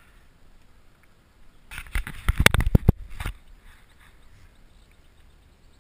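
A brief flurry of knocks, thumps and rustles lasting about a second and a half, starting about two seconds in, as a caught largemouth bass is handled and shifted in the hand close to the microphone.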